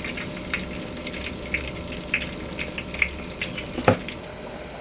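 Pumpkin cakes deep-frying in a wok of hot oil: a steady sizzle with scattered crackles and pops, and one sharper click a little before the end.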